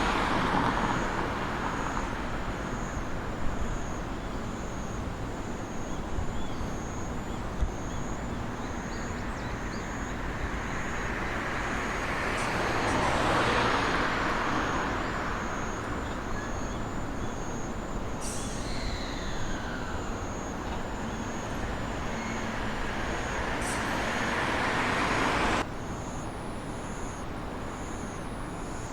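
Steady outdoor vehicle rumble that swells and fades twice as vehicles pass, with a faint high chirp repeating about once a second. The sound cuts abruptly to a quieter scene near the end.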